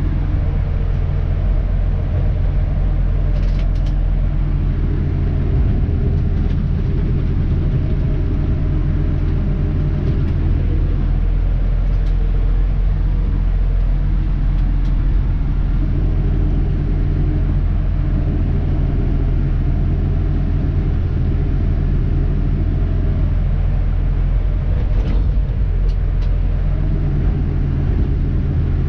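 Dennis Elite 2 refuse truck's diesel engine running steadily with a low, even rumble, heard from inside the cab, with a few faint clicks now and then.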